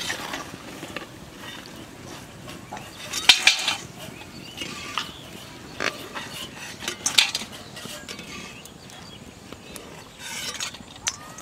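Karela pakoras deep-frying in oil in an aluminium kadai, sizzling steadily. A metal slotted spoon clinks and scrapes against the pan and a steel colander several times as the fried pieces are lifted out, loudest about three seconds in.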